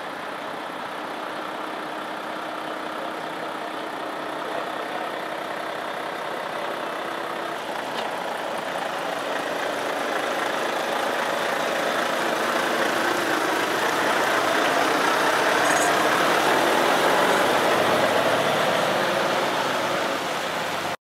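Volvo articulated lorry's diesel engine running as the truck pulls out and drives past, growing steadily louder as it nears; the sound cuts off abruptly near the end.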